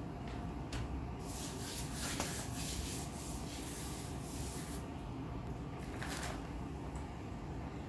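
Gloved hand rubbing the back of a sheet of paper pressed onto a painted plate, taking a monotype print: a dry rustling hiss for a few seconds. About six seconds in comes a brief rustle as the sheet is peeled off the plate.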